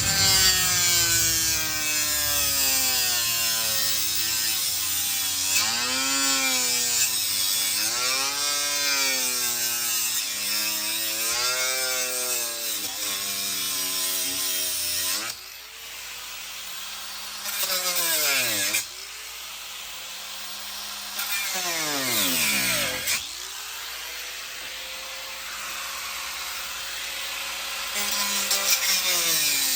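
Electric power tool motor running under varying load, its pitch wavering up and down. Twice it is let off and spins down, then it runs up again to a steady speed.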